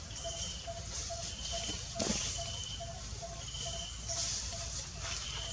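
Outdoor forest ambience: a short low call repeats evenly about two and a half times a second, while a higher held note repeats about once a second over a steady high hiss. A brief falling sound comes about two seconds in.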